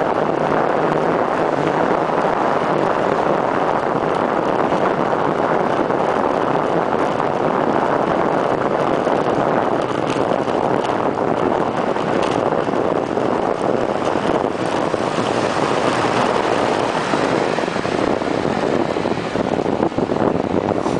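Steady rush of wind over the microphone of a camera mounted on a bicycle's stem during a road descent on the bike.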